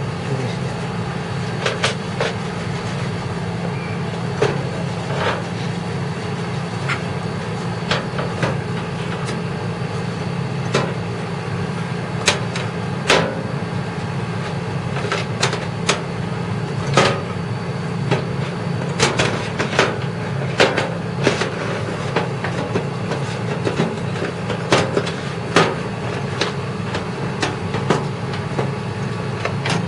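Irregular clicks and light knocks of computer parts and cables being handled and fitted into a desktop PC case, over a steady low hum.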